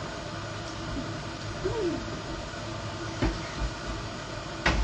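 A steady mechanical hum and hiss, with light knocks about three seconds in and again near the end.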